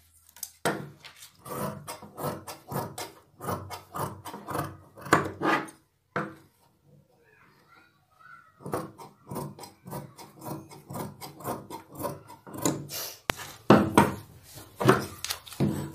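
Large tailor's shears snipping through four folded layers of cotton lining fabric in a quick run of cuts, with a pause of about two seconds a little past the middle.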